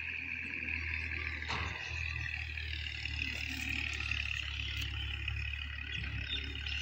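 Outdoor field ambience: a steady high-pitched chorus of frogs and insects over a low, steady hum, with a brief sharp click about one and a half seconds in.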